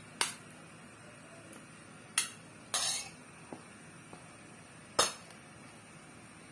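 A cooking utensil clinking against a pan as cooked chicken cubes go into a cream sauce. There are a few separate sharp knocks a couple of seconds apart, and one short scrape about three seconds in.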